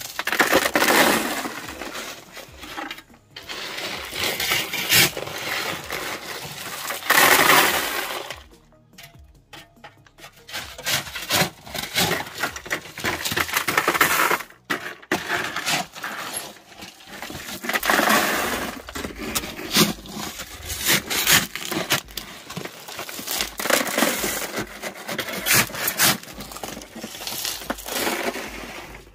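Crushed stone crunching and clinking as it is shovelled in around plastic conduit pipes, in several loud bursts of a second or two, each full of small clicks.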